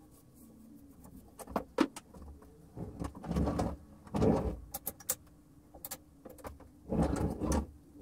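Wooden birdcage being handled and turned about: a couple of sharp clicks about a second and a half in, then three short scraping, rumbling bursts.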